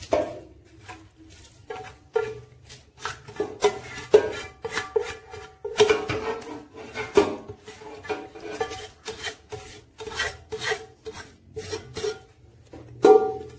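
A spoon scraping thick chicken masala out of a pan and spreading it over the rice in an aluminium pot. There are irregular scrapes and knocks of the spoon against the pan and the pot.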